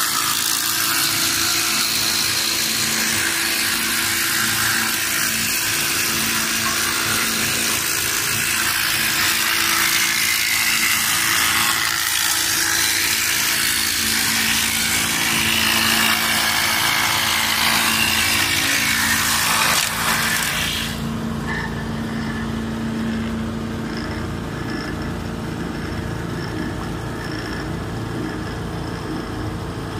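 Automatic wood round-bar sanding machine running, with a loud grinding hiss from the sanding heads and dust spout as wooden bars feed through. About two-thirds of the way in, the hiss stops suddenly, leaving the machine's motors humming steadily.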